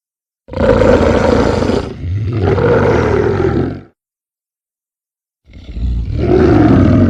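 Monster roar sound effects: two long roars back to back, then a third after a pause of about a second and a half.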